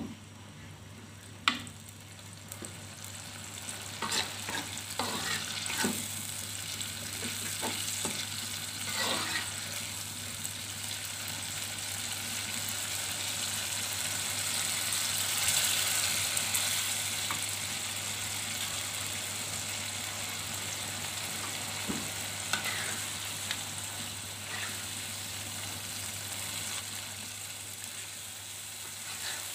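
Chili sambal sizzling in a wok as a metal spatula stirs it, with sharp scrapes and knocks of the spatula against the pan in the first ten seconds. The sizzle grows louder toward the middle, once the fried eggs are in the sauce.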